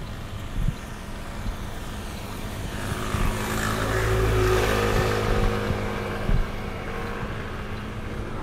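An engine-driven vehicle passing by, swelling to its loudest about four to five seconds in and then fading, over a steady low wind rumble on the microphone.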